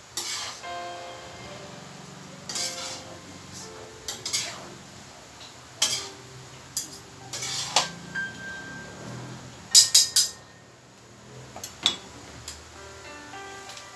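Metal cooking utensils scraping and clinking against a metal wok as food is stirred and tossed, in scattered knocks with a loud cluster of clinks about ten seconds in.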